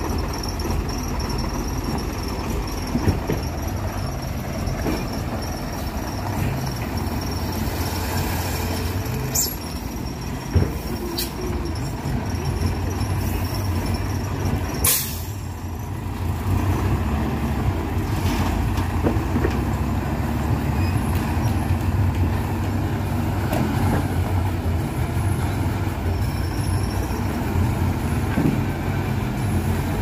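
Diesel engines of Hino 500 concrete mixer trucks running as a steady low rumble while the trucks manoeuvre. A short sharp air-brake hiss comes about halfway through, with a few clicks just before it.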